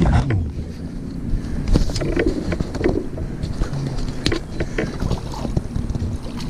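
Water splashing as a hooked bass is fought to the side of a small boat and scooped into a landing net, with the main splash near the end. Scattered knocks and clicks sound over a low rumble of wind on the microphone.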